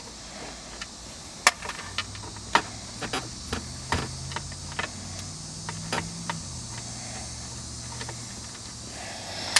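Torx screws being backed out of a plastic console lid: scattered sharp clicks and taps of the driver and screws. Underneath runs a low hum that shifts pitch a couple of times.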